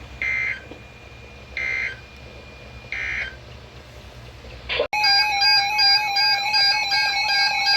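EAS end-of-message over NOAA Weather Radio: three short digital data bursts about 1.3 s apart over a faint radio hiss. About five seconds in, an abrupt cut to louder electronic music with steady synthesizer tones.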